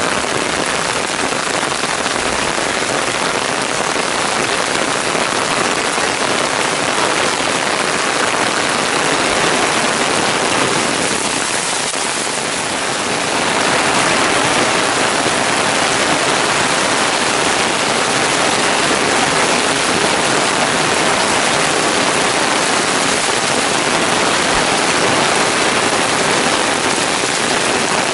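Heavy downpour pelting a paved stone path and the surrounding foliage: a loud, steady rain hiss that eases slightly a little before the middle, then comes back a little louder.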